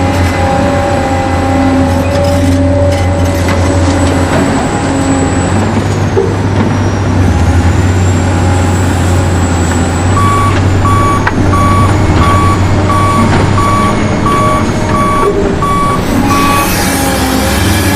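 Remote-control toy truck's engine sound running steadily, with a reversing beeper sounding about ten short beeps in a row about ten seconds in.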